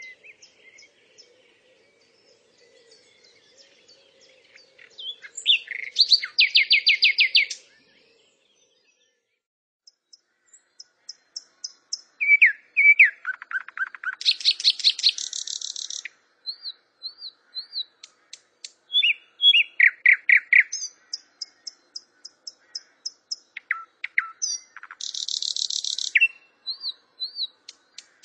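Songbird singing: fast high trills and chirps in bursts, breaking off into silence for about two seconds around a third of the way in.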